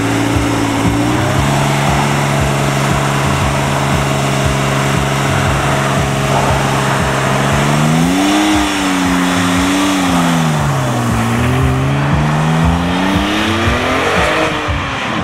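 Porsche 996 Turbo's twin-turbo flat-six, its engine note held steady for several seconds, then revved up and down a couple of times. Near the end the revs climb steadily as the car pulls away.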